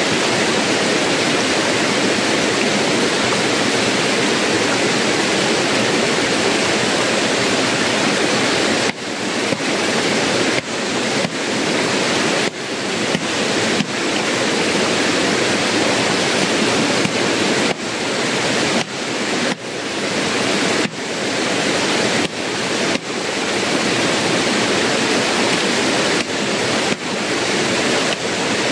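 Shallow rocky river flowing: a steady rushing of water, which dips briefly again and again after the first third.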